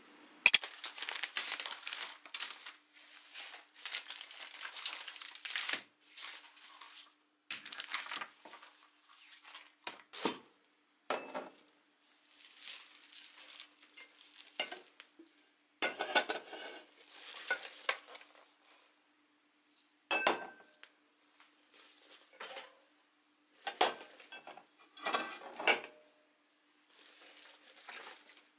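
Shopping being unpacked onto a kitchen counter: a bag rustling, with glass wine bottles and aluminium drink cans set down in a string of irregular clinks and knocks.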